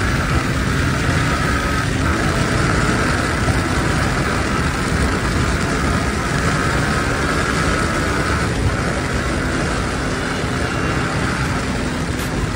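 Yamaha MT-15's 155cc single-cylinder engine running at high road speed, its steady high note breaking off briefly twice, under heavy wind rush on the microphone.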